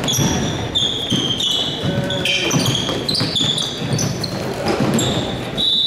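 Basketball sneakers squeaking on a hardwood gym floor: many short, high squeaks one after another as players run and cut. Under them a basketball bounces on the floor.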